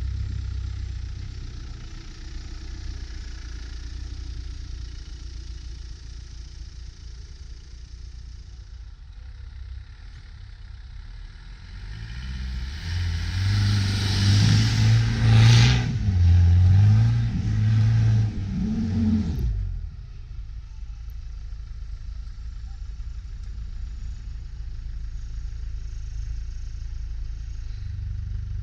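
A Land Rover Defender 110's engine working a 4x4 up a snowy slope, running steadily, then revving hard up and down several times for about seven seconds midway with a rush of noise, before settling back to a steady run.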